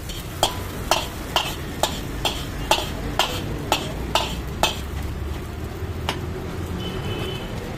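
Metal ladle striking and scraping a black iron wok as scrambled egg is stirred, about two strokes a second for the first five seconds, then one more a little later, over a steady low rumble.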